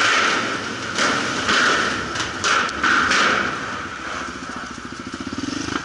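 Quad bike engine running, with several sharp knocks and thumps in the first three seconds. It then drops to a quieter, even, fast-pulsing idle.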